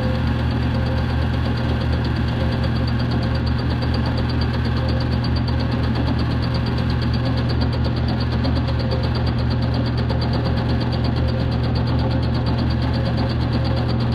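Milling machine running, its cutter head spinning over an aluminium jet ski cylinder deck during a decking pass. It makes a steady hum with a fast, even ticking on top.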